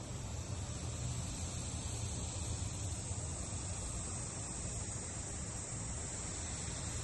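Steady outdoor background of insects trilling, an even high-pitched hum with a low rumble underneath.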